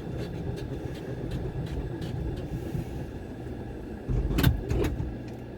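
Car cabin noise while driving: a steady low engine and road rumble, with a single knock about four and a half seconds in.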